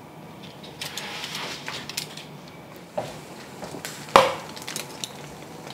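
Kitchen handling noise from a foil-lined metal baking sheet: a soft rustle, a few light clicks and knocks, and one sharp knock about four seconds in.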